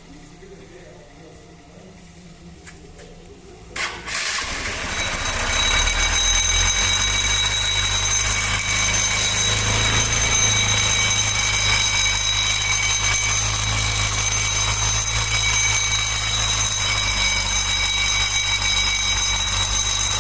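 Honda Bros 150 single-cylinder engine starts about four seconds in and runs steadily, with a high ringing like a bell over the engine note. This is the strange noise that the mechanic traces to a damaged, misaligned crankshaft end, which lets the starter-plate gear work loose and vibrate.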